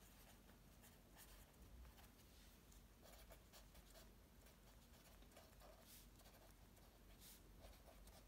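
Faint scratching of a felt-tip pen writing on paper, in short irregular strokes.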